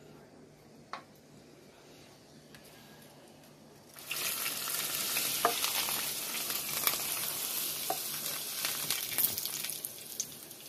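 Hot achiote (annatto) oil poured through a small strainer onto grated green-banana masa, sizzling with many small crackles as it hits. The sizzle starts suddenly about four seconds in and eases off near the end.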